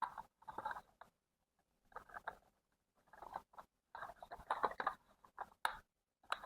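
Faint, irregular light tapping and clattering of small hard objects, thickest about four to five seconds in.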